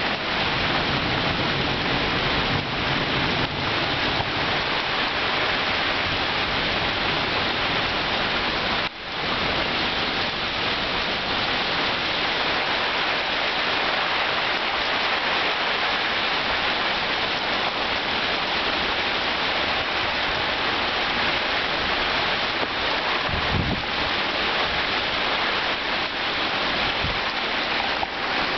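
Heavy thunderstorm downpour: a dense, steady hiss of rain pouring down on roofs, trees and pavement.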